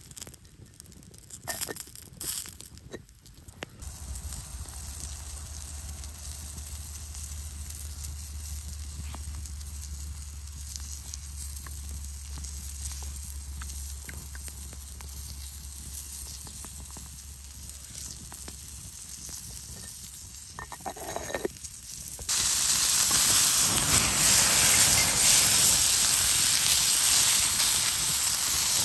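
Wood fire crackling quietly under a clay pot of beans being stirred with a wooden spoon, with a few knocks and rustles near the start. About three quarters of the way in, a loud, steady sizzling hiss starts abruptly: a coiled sausage frying on a cast-iron grill pan over flaring flames.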